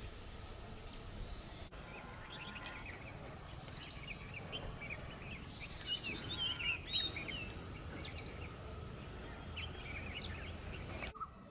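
Many short, overlapping bird chirps and squeaks over a steady outdoor background noise, busiest about six to seven seconds in. The background noise drops off abruptly near the end.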